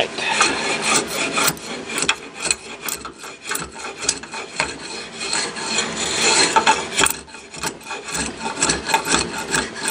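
Small finger plane shaving rough-sawn wood in short, repeated scraping strokes as the blade takes thin shavings off the board's surface.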